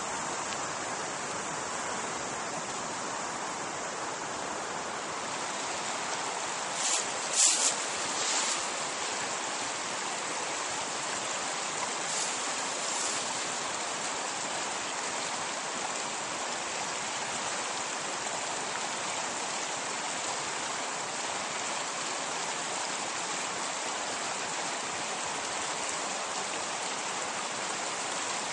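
A small rocky stream running, a steady rushing of water. A few brief sharp noises stand out about seven to eight seconds in, and fainter ones around twelve seconds.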